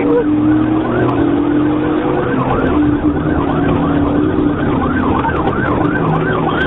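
Police car siren in fast yelp mode, sweeping up and down about two to three times a second, over a steady low drone.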